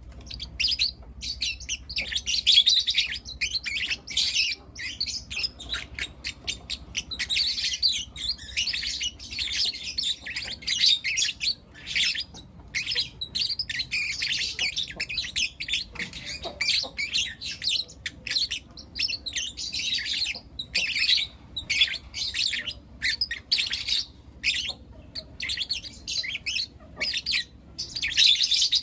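Several young lovebirds chirping continuously: a dense chatter of rapid, shrill calls, broken only by a few brief pauses.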